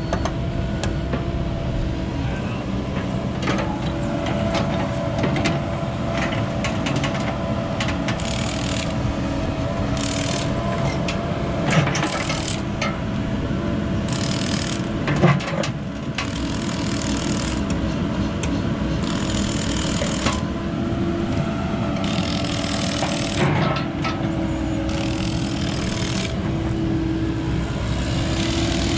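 Cat 308E2 mini excavator's diesel engine running steadily with a constant hydraulic whine, with a few short knocks from the undercarriage and track.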